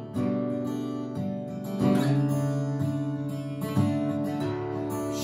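Steel-string acoustic guitar in open D tuning, chords picked and strummed with the notes left ringing, a new chord struck about every two seconds.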